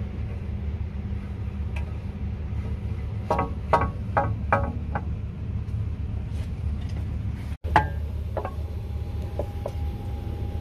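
Light metallic clinks, about five in quick succession, as a LEAP-1B titanium fan blade is worked into its dovetail slot in the fan disk. A single sharper knock follows a few seconds later, over a steady low hum.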